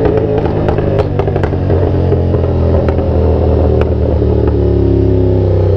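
CFMOTO 450SR parallel-twin motorcycle engine running on the move. A scatter of sharp clicks and knocks comes through in the first four seconds, and from about four and a half seconds in the engine note comes through clearer and rises gently as it pulls.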